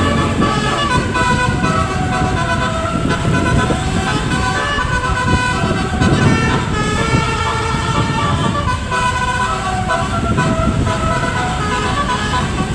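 Basuri multi-tone vehicle horn playing a melody, its chord of notes stepping from pitch to pitch every fraction of a second, over a low engine rumble.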